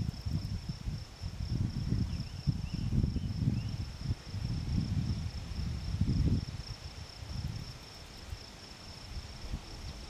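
Wind buffeting the microphone in uneven gusts that ease off after about seven seconds. Under it runs an insect's steady, high-pitched trill, with a few faint chirps about three seconds in.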